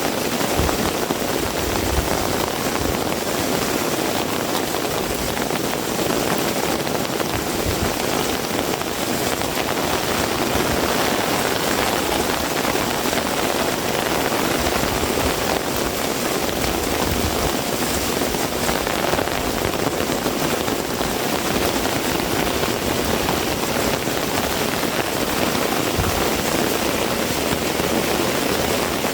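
Heavy rain pouring steadily, an even, dense hiss with no let-up.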